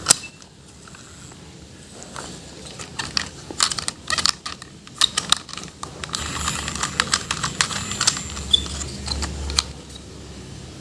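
Irregular clicks and taps of hard plastic toys and packaging being handled, with a stretch of rustling in the middle.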